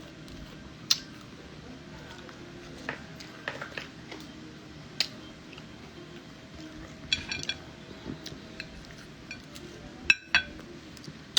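Cutlery clinking against a plate in scattered, sharp little clicks, with a quick run of clinks about seven seconds in and a sharper pair near the end.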